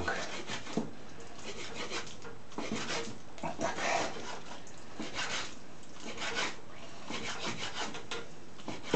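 Kitchen knife cutting partly thawed chicken fillet into small cubes on a wooden cutting board: short runs of quick chopping strokes against the board with brief pauses between them.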